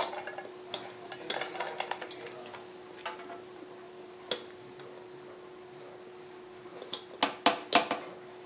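Metal cooking pot knocking and scraping against the rim of a metal baking pan as cooked rice is tipped out of it, with scattered clinks and a cluster of louder knocks near the end. A faint steady hum runs underneath.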